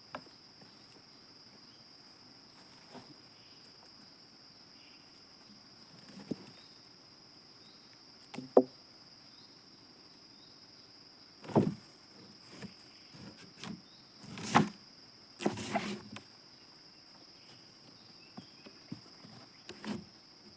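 Steady high-pitched insect drone, with a few scattered knocks and thumps; the chainsaw is not running.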